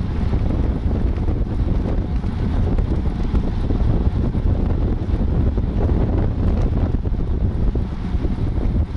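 Wind buffeting the microphone of a camera on a road bike ridden at speed: a loud, steady low rumble that flutters without a break.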